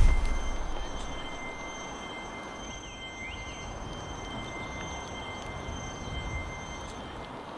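Film sound design: a loud bang right at the start dies away into a low rumble. Under it a steady high-pitched ringing, made of several pure tones, holds until near the end and then stops. This is the kind of ear-ringing effect laid in after a blast or shot.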